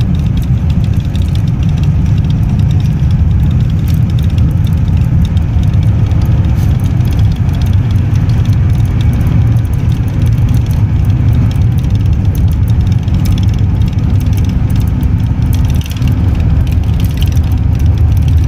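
Steady low rumble of engine and road noise heard from inside a moving road vehicle.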